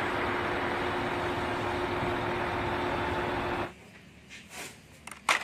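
Concrete mixer truck running steadily, with a steady hum running through its engine noise, until it cuts off abruptly about three and a half seconds in. A single sharp click comes near the end.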